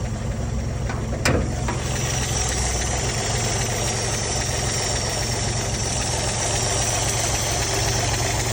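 Engine of a 1961 Chevrolet Apache 60 truck idling smoothly, with one sharp click about a second in. From about two seconds in, a faint high whine sits over the idle.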